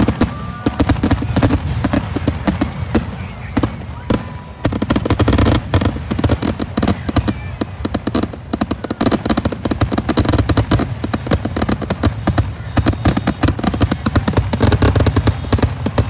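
Aerial fireworks show: shells bursting in a rapid, continuous barrage of bangs and crackles over a steady low rumble, growing denser about four and a half seconds in.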